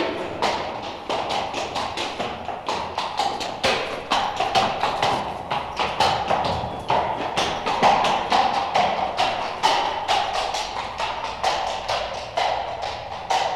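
Horse hooves clip-clopping on a hard street surface: a steady run of sharp hoofbeats, several a second, each with a slight echo.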